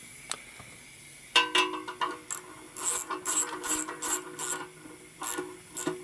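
A run of sharp metallic clicks and clinks with a faint metal ring, about three a second in the middle of the run. These are hand tools working a threaded fitting into a chrome motorcycle oil tank.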